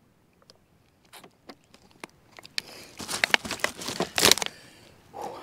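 Close rustling and crinkling with scattered clicks, building to a loud dense patch in the middle for about two seconds.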